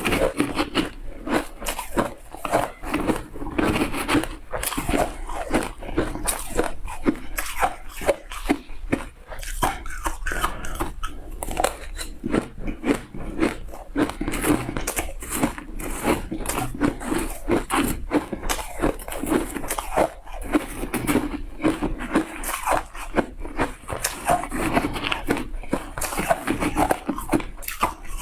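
Shaved ice crunching as it is bitten and chewed, a dense run of irregular cracks and crackles with short pauses between bites.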